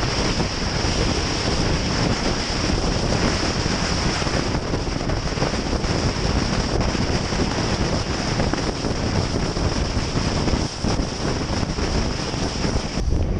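Loud, steady rushing wind noise on a small action camera's built-in microphone, with a steady high hiss over it that cuts off near the end.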